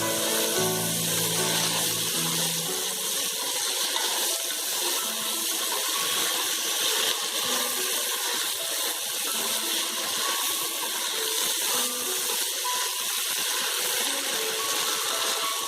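Steady sizzling of spaghetti being stir-fried in a pan of sauce.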